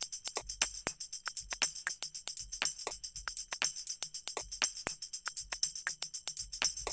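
Background music: a quiet passage carried by a fast, steady percussion rhythm with a bright jingling shimmer.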